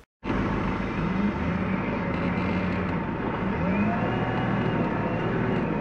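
Vehicle engine running, heard from inside a van's cab, its pitch rising briefly a couple of times.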